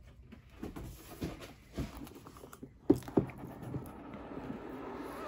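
Cardboard packaging handled on a desk: light knocks and rustles, two sharper knocks about three seconds in, then a steady sliding rustle of cardboard against cardboard.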